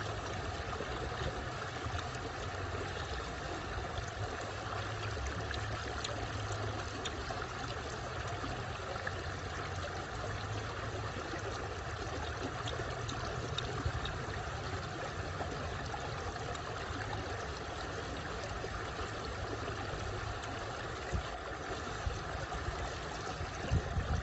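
Shallow stream running over rocks: a steady rush of water, with a few faint clicks on top.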